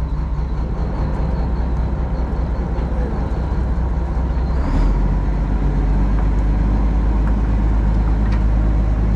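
A fishing trawler's inboard engine running steadily with a low hum. It gets louder about halfway through.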